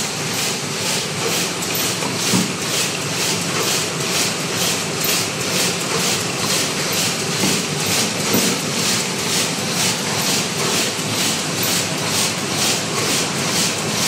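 MYC-120 double-turntable high-speed paper cup forming machine running steadily, a continuous mechanical noise with a regular beat of about two strokes a second.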